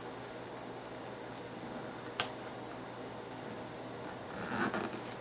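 Small craft tools being handled on a desk over paper: one sharp click about two seconds in and soft rustling and scraping near the end.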